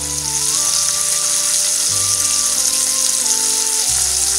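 Beef roast sizzling steadily as it sears in hot olive oil in a multicooker pot, under background music of held notes.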